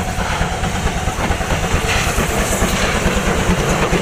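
Steam locomotive hauling coaches along the track, running with a steady rumble.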